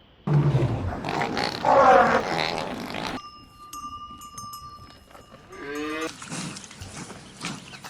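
A string of animal calls in cut-together clips: a loud, rough call with low grunting, then steady high-pitched tones, then a short rising cry.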